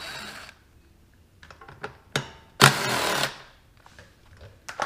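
Cordless power tool with a 10 mm socket spinning out a fuel-tank bolt on a small engine: one run dies away in the first half second, and a second short run of under a second comes about two and a half seconds in. Light clicks of the tool and bolt being handled come between the runs.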